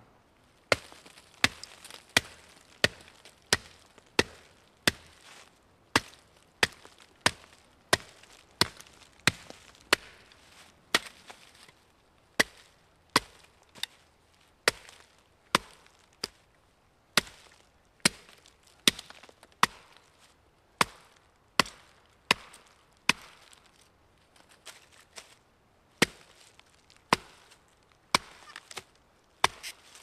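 Zippo 4-in-1 Woodsman hatchet chopping small sticks into kindling. The sharp chops come at a steady pace of roughly one to two a second, with a few short pauses.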